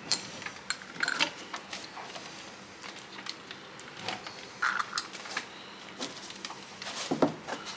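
Hand tools and metal suspension parts clinking and knocking as a bolt, socket wrench and ratchet are handled and lined up: irregular sharp metallic clicks, with no power tool running.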